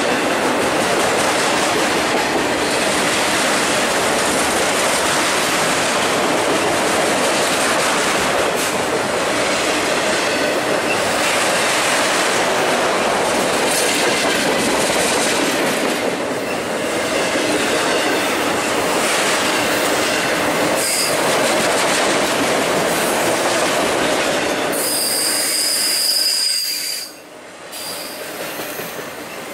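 Freight cars of a long freight train (autoracks and a tank car) rolling past close by: a loud, steady rumble of steel wheels on the rails. Near the end a high wheel squeal is held for about two seconds, then the noise dips briefly.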